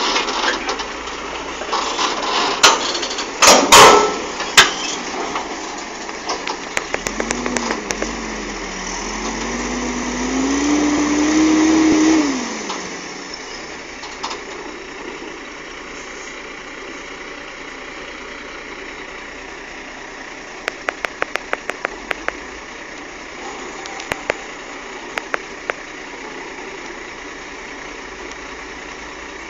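Tanker truck's diesel engine labouring in mud: it revs up, pitch climbing for a few seconds, then drops back about twelve seconds in to a steadier, lower running. Sharp knocks come early on, and a quick run of clicks comes later.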